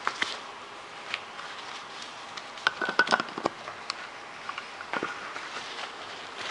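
Handling noise from a plastic lens-shaped thermos mug, its lens cap and its cloth drawstring pouch: scattered light clicks and rustles, with a quick run of sharp clicks about three seconds in and another click about five seconds in.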